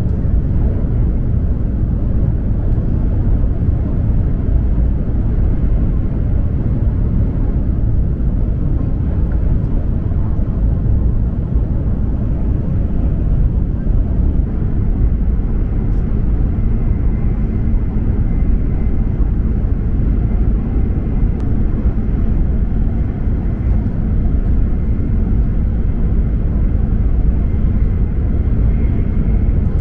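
E7 series Shinkansen running at high speed, heard from inside the passenger cabin: a steady, loud low rumble of running and air noise, with a faint high whine in the second half.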